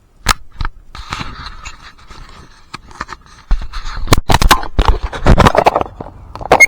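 Action camera going into the water: sharp knocks on the camera body, then muffled water noise and a run of heavy thumps and rumbles against its microphone from about halfway through.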